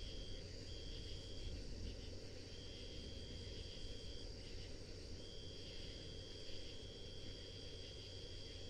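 Night insects trilling. One high, steady trill breaks off briefly three times and comes back, over a second, higher trill that never stops, with a low rumble of background noise underneath.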